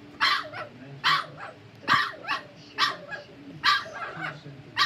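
American bully puppy giving a string of short, sharp yelps, roughly one a second. He is sick after swallowing medication.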